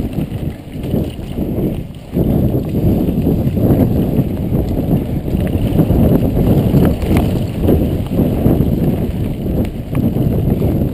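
Mountain bike riding on a dirt trail, heard from a GoPro mounted on the bike or rider: wind rumbling on the microphone over the rattle and clatter of the bike on rough ground, with a few sharp clicks. The level dips briefly just before two seconds in.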